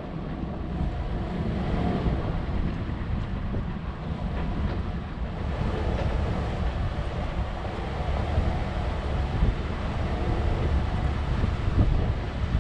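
4x4 vehicle driving, a steady engine and road rumble with wind buffeting the microphone and a few light knocks.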